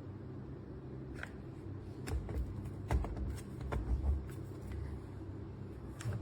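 Scattered light clicks and knocks, clustered in the middle and once more near the end, over a low steady hum; no drill motor running.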